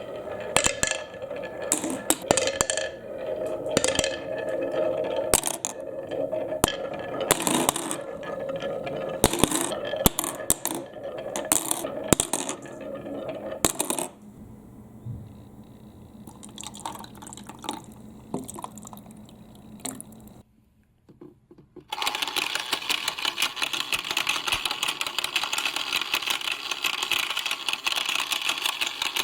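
Glass marbles clacking and clinking as they roll down a wooden marble-run track, thinning out after about 14 seconds. After a short silence, a toy mini washing machine starts running with marbles inside, giving a steady fast rattle.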